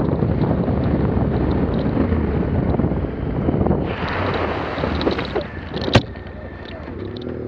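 Yamaha Ténéré 700's parallel-twin engine running under wind noise on a dirt track. About four seconds in, a louder hiss comes as the tyres go through wet mud and puddles. About six seconds in there is a sharp single impact as the bike crashes, and after it the engine keeps running at a low, steady note.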